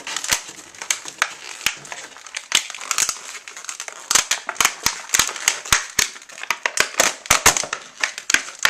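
Stiff plastic clamshell packaging being cut and pried open with a package opener, giving irregular sharp crackles and crunches.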